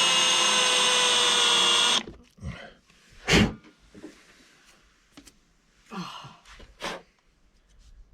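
Power drill spinning a bit used as a countersink to chamfer a screw hole, running steadily and stopping suddenly about two seconds in. After it come a few scattered knocks and clicks, the loudest about three and a half seconds in.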